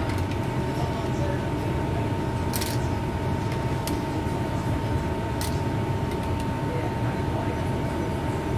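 Steady low hum with a thin steady whine over it, and two light clinks of a ladle against metal cookware.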